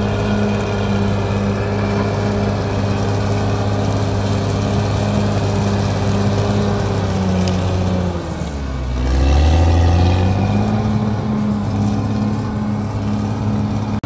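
Caterpillar D6R XL bulldozer's diesel engine running steadily as the blade pushes soil and stumps. About two-thirds of the way in, its pitch sags and then climbs back, the engine lugging under the load.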